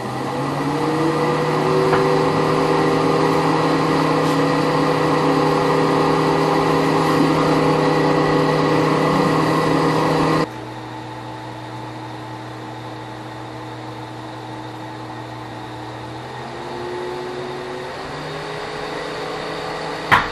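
Junkyard 2007 Ford Focus dual electric radiator fans, driven by a PWM controller, winding up slowly to speed with a rising whine, then running steadily. About ten seconds in they drop abruptly to a slower, quieter speed, picking up a little near the end, with a brief click just before the end.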